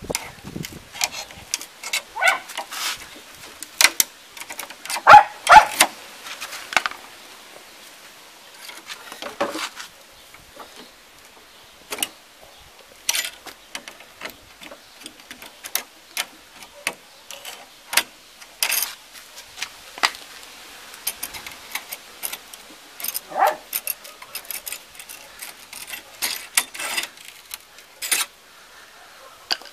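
A dog barking now and then, loudest about five seconds in, over sharp clicks and metallic clatter from snips cutting the steel packing straps on a wooden crate.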